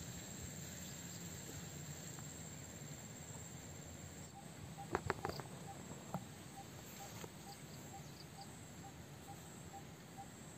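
Faint insect chirring, a steady thin high note, over quiet outdoor background. From about four seconds in, a soft pip repeats at an even pace, and a few light clicks come about halfway through.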